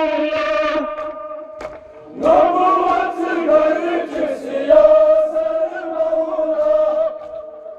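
Male voices chanting a Kashmiri noha, a Muharram mourning lament, in long held notes. One phrase dies away about a second in, and the next starts about two seconds in and runs to near the end.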